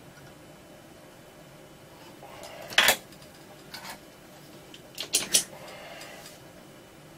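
Hand tools clicking and clattering as they are handled on a workbench: one sharp click about three seconds in, a softer one a second later, and a quick run of three clicks around five seconds in.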